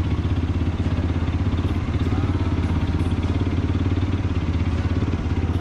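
ATV engine running steadily with a fast, even pulse.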